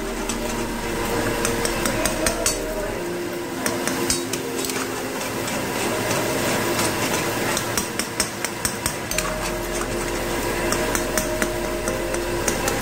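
Flat metal spatula scraping and clanking against an iron karahi (wok) while stirring chicken in sauce, with repeated sharp metallic knocks, thickest near the start and in the second half.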